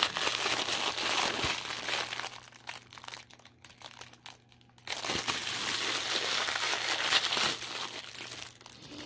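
Crinkling of a clear cellophane bag of foil-wrapped chocolate hearts being handled and opened by hand. It comes in two spells, with a quieter, sparser stretch in the middle.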